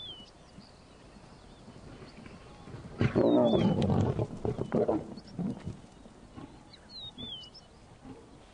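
Lions snarling and growling over a zebra foal kill as a big male lion takes it over and drives the younger lions off. A loud burst of about two seconds starts about three seconds in, followed by a few shorter growls.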